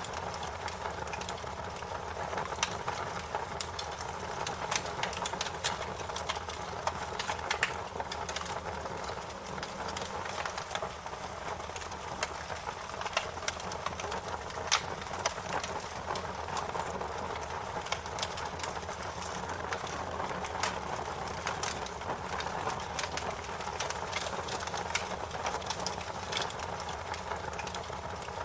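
Wood fire crackling: frequent irregular sharp pops and snaps over a steady low hiss.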